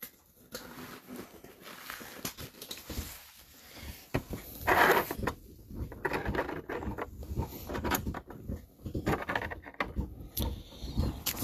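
Gloved hands handling and setting down clear plastic display easels on a table: irregular light clicks and rustles, with a louder rustle about five seconds in.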